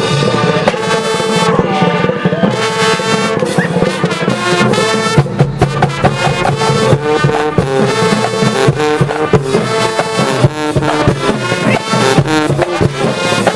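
High school marching band playing a stand tune: massed brass, trombones and trumpets, over drums, with short punchy held chords.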